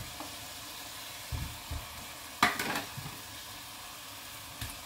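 Tomato-onion curry masala sizzling steadily in a pan as boiled potato chunks are cut and dropped into it. A few soft thumps come about a second and a half in, then one sudden loud knock about halfway through.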